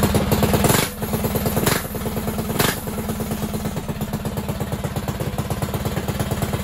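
Predator 224 Max Performance single-cylinder engine on an RT200 minibike, running on an E50 ethanol-and-gasoline mix just after a first-pull start. It is loud at first, gives a couple of short louder bursts in the first three seconds, then settles into a steady, even beat.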